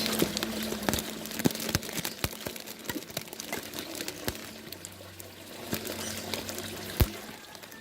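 Water trickling and dripping, with many small splashes and clicks. One sharper knock comes about seven seconds in.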